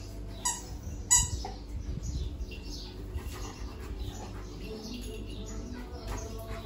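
Small birds chirping steadily in the background, with two short sharp sounds about half a second and a second in, the second the louder.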